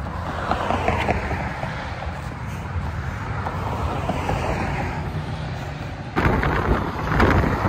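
Wind rumbling on a handheld phone's microphone, with faint voices under it. It turns abruptly louder about six seconds in.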